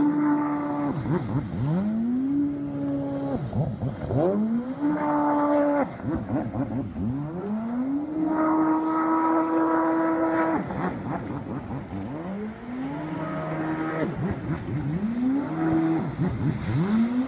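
A high-revving engine revved hard over and over: each time its pitch climbs quickly, holds briefly at the top, then falls away. This happens about six times, with one longer hold of about two seconds near the middle.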